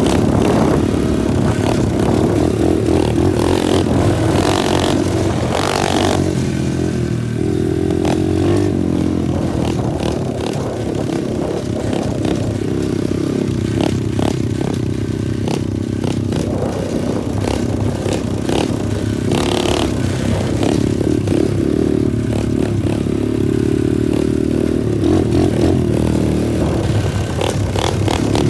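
Small single-cylinder four-stroke engine of a 120cc Honda-clone pit bike running steadily while riding along, with little change in pitch, and brief clattering and scraping noises here and there.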